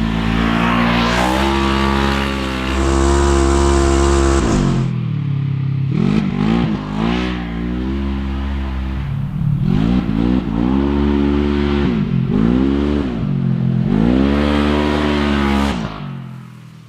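Polaris RZR XP 1000 side-by-side's twin-cylinder engine revving hard through its exhaust. It holds high revs for the first few seconds, then is blipped up and let fall back about four times, and fades out near the end.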